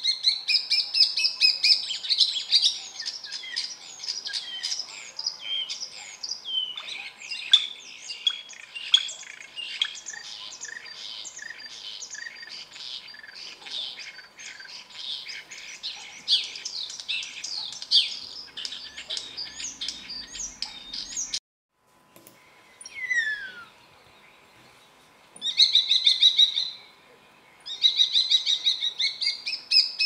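Common starling singing: a long run of varied chirps, whistles and rattling notes that breaks off abruptly about two-thirds of the way through, followed by a single falling whistle and two short bursts of rapid trilled notes.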